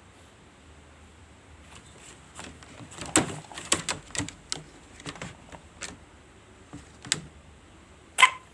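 Irregular clicks and knocks as a sick chicken and the oiled feather used on its throat are handled, then one short, sharp chicken cry near the end.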